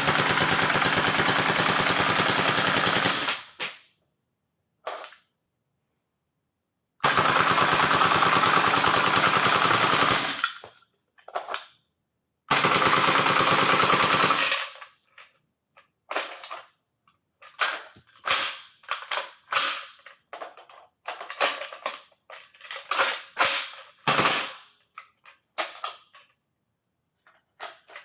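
Rare Arms AR-15 airsoft rifle firing on full auto with empty 3D-printed ABS shells and no BBs: three long bursts of about two to three seconds each with pauses between, then a run of short, broken bursts and stuttering shots.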